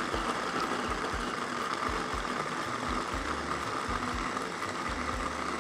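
Small electric food processor running steadily, its blade chopping chunks of stale bread into coarse crumbs, with irregular low thuds under the motor noise.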